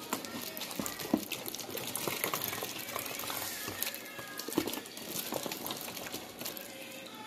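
Water swirling and gurgling inside a plastic water-bottle tornado, with scattered clicks and taps from the bottle being handled.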